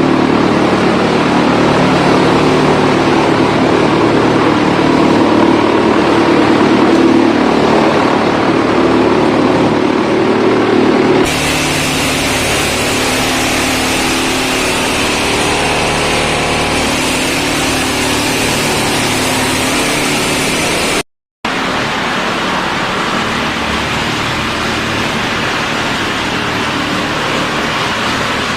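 Wood chipper running steadily: a continuous machine drone with a low engine hum under dense noise. About eleven seconds in the sound changes abruptly to a thinner, hissier tone, and it drops out for a moment a little past twenty seconds.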